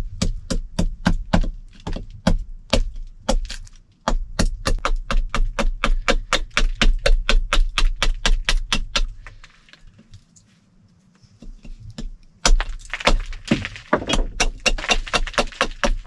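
Knife strokes cutting the bark off and chopping a dried chaga chunk against wood: quick, sharp cracking strokes, several a second, that pause for a few seconds midway and then resume.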